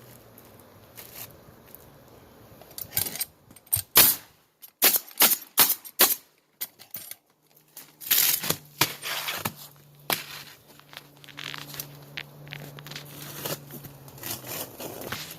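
Pneumatic roofing nailer firing nails into asphalt shingles: a quick run of sharp bangs a few seconds in, followed by scraping and handling of shingles, with a low steady hum in the second half.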